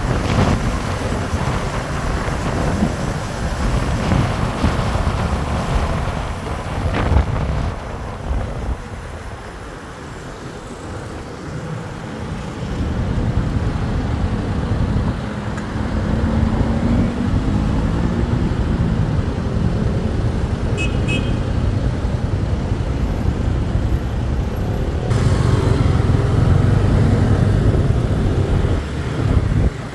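Motorcycle riding in city traffic: road and wind noise with engine sound on the phone's microphone, easing as the bike slows about a quarter of the way in. Then the engines of surrounding traffic around the stopped bike, with one engine rising and falling in pitch near the middle and a short high beep a little later.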